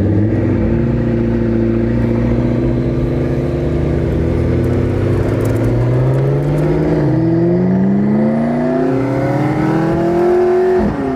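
Car engine running steadily under load, then its pitch climbs smoothly for several seconds as the car accelerates, and drops sharply near the end.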